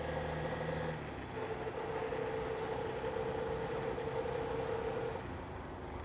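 Motorcycle engine running at steady revs while riding, with road and wind noise. Its note changes slightly about a second in and then holds steady.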